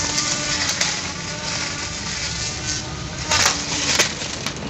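Cordless 12-volt grass trimmer (CDGT360) running with a steady motor whine as its spinning cutting head slices through grass and weeds. Sharp ticks come through throughout, with a louder burst of crackling about three and a half seconds in and one more crack at about four seconds as the head hits stems and debris.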